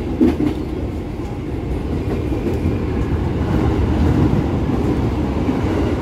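Electric commuter train running along the track, heard from inside the carriage: a steady low rumble with faint short clicks, and a louder knock just after the start.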